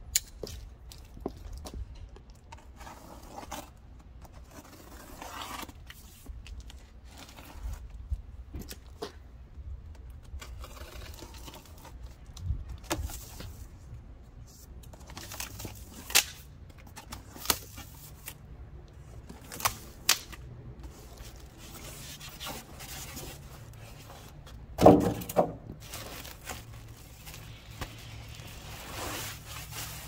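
A cardboard box being unpacked by hand: packing tape slit with a folding knife, flaps pulled open, and packaging scraped, rustled and lifted out, with scattered clicks and knocks. A louder clatter comes about 25 seconds in.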